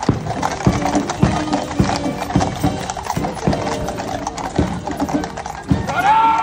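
Household Cavalry horses walking past on a paved road, their hooves clip-clopping in an uneven run of sharp strikes about two a second. About six seconds in, a short tone rises and is held briefly.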